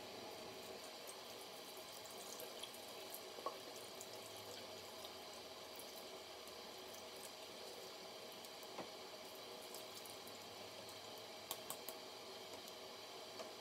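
Bathroom faucet running a thin, steady stream into the sink while a makeup brush is worked in wet hands. A sharp click about three and a half seconds in and three quick clicks near the end.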